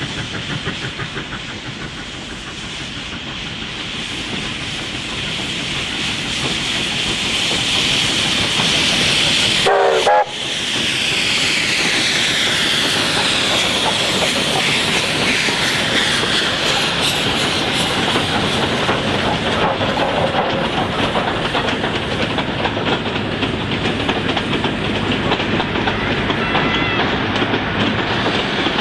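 Steam locomotive working hard with a passenger train, its exhaust beating in rhythm and growing louder as it approaches and passes close by with hissing steam. Then the wheels of the passenger carriages clatter over the rail joints as the train rolls past.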